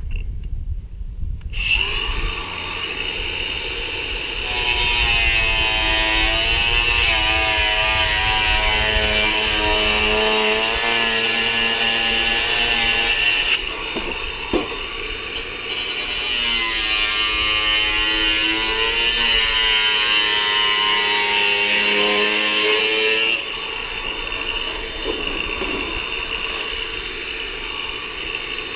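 Angle grinder with a thin cutting disc starting up and cutting sheet steel for body-repair patches. Two long, loud cuts of about nine and seven seconds, the motor's pitch sagging under load, with the disc spinning freely with a steady whine between and after them.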